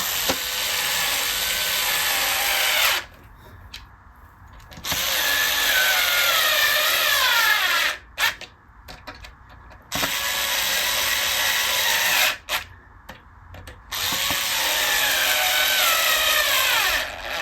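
Cordless drill/driver driving the neck screws into a Stratocaster body in four separate runs, one after another. Its whine drops in pitch toward the end of several runs as the screw tightens.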